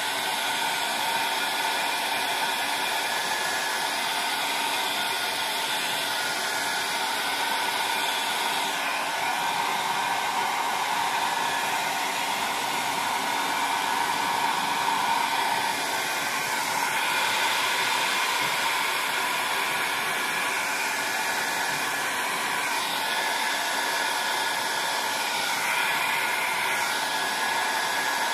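Steady whirring rush of an electric blower motor running without a break, its tone shifting slightly now and then.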